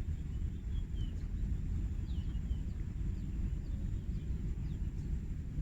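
Outdoor ambience: a steady low rumble with several faint, short bird chirps scattered through it and a thin high steady tone.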